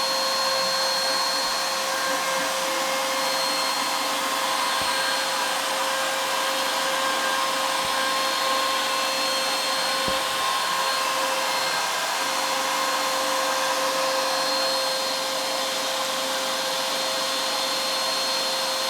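CNC router spindle running with a steady whine while a 1/16-inch ball-nose bit takes slow finishing passes across a wood relief carving.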